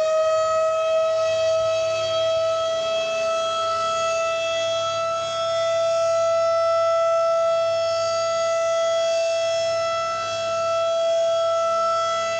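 Civil defense tornado sirens sounding a routine weekly test, not a warning. The tone finishes winding up to full pitch at the start, then holds a steady pitch, with its loudness swelling and dipping every few seconds.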